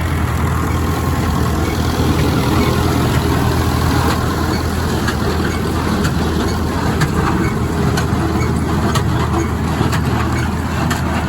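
Large engine running steadily at a low, even speed, a continuous low hum.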